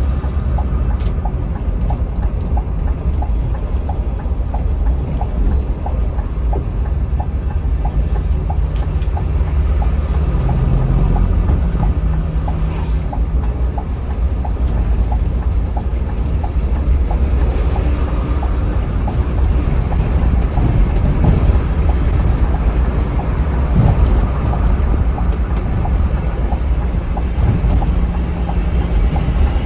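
Scania K360iB coach running at speed, a steady low rumble of engine and road noise. A faint, regular ticking runs alongside it in the first half.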